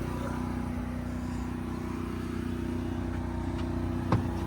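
A motorhome's engine running steadily at idle, a low even hum with a fast fine pulse. A single sharp click sounds about four seconds in.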